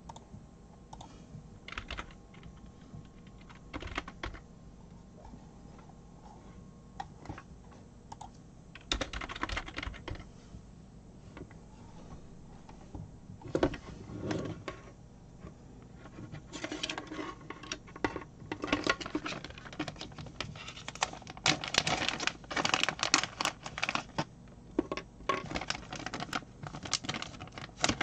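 Small clicks and rustles of hands handling and untwisting the twisted-pair wires of a stripped Ethernet cable, sparse at first and getting busier after about halfway; near the end a plastic parts bag is handled.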